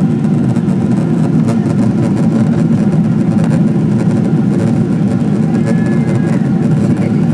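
Steady low cabin noise of a Boeing 777-200 climbing out after takeoff: engine and airflow noise heard from inside the passenger cabin, constant in level throughout.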